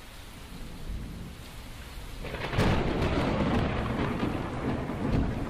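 Steady rain with thunder: a low rumble of thunder swells in about two and a half seconds in and rolls on over the rain.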